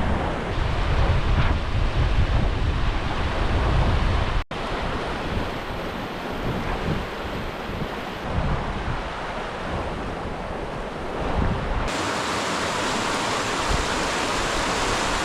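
Wind buffeting the microphone over the steady rush of a river. The sound cuts out for an instant about four and a half seconds in; from about twelve seconds the wind rumble drops away and the river's rush becomes an even, steady hiss.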